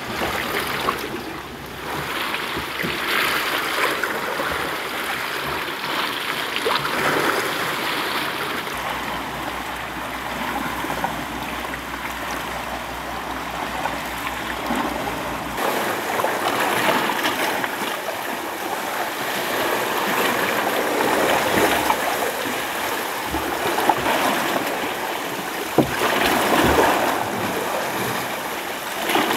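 Oars of a rowboat pulling through the water, a swishing splash that swells with each stroke every four or five seconds over the lapping of the sea. A couple of sharp knocks come near the end.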